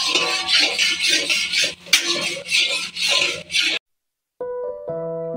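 A spatula scraping and stirring a thick paste around a metal pan, in quick repeated strokes. The stirring cuts off about two-thirds of the way through, and after a brief gap soft piano music begins.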